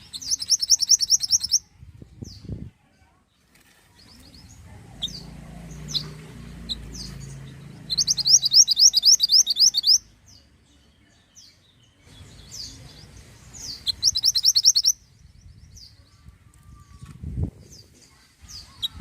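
Mantenan (small minivet) singing: three fast trills of high, thin notes at about six a second, with single short chirps scattered between them.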